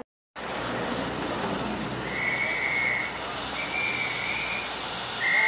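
Steady hiss of escaping steam from a standing LMS Stanier Black Five steam locomotive, with three short, high whistle blasts about a second long each sounding over it. The sound begins just after a brief silence.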